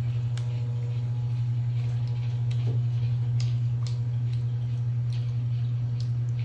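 A steady low mechanical hum switches on and cuts off suddenly after about seven seconds, loud and even throughout. Over it come sharp crunching bites and chewing of fried chicken.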